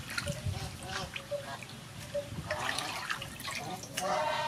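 Water splashing and dripping in a large aluminium basin as raw chicken wings are rinsed by hand and lifted out of the water, with irregular small splashes and drips.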